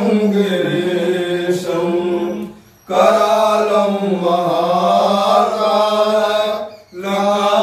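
A man's voice chanting Sanskrit mantras of the Rudrabhishek in long, held phrases on a fairly steady pitch. He breaks off briefly to breathe twice, once about a third of the way in and once near the end.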